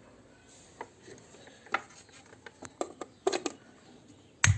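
Scattered clicks and taps of handling and button presses, then near the end a louder click-thump as the Intex speaker system is switched on, followed by a steady low electrical hum from the powered-up speakers.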